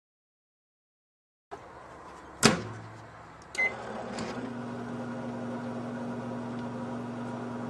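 Dead silence, then a sharp click of the microwave oven door, a single short keypad beep, and the oven starting up and running with a steady low electrical hum.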